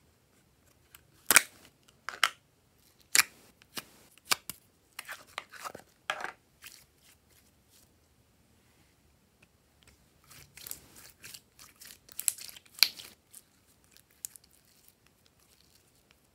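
Glossy glitter slime being pulled and stretched by hand, giving a run of sharp sticky clicks and pops. They come in two busy spells, from about a second in to six seconds and again around ten to thirteen seconds.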